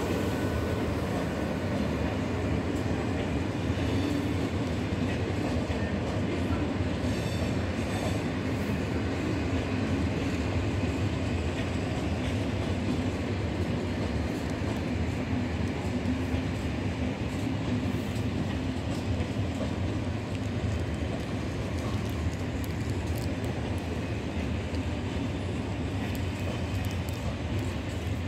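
SNCF TER train of Corail coaches hauled by an electric locomotive rolling past along the platform track, a steady rumble of wheels on rail.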